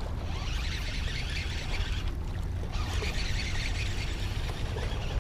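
Wind rumbling on the microphone while a baitcasting reel is cranked to bring in a hooked fish, with a high hiss that drops out briefly about two seconds in.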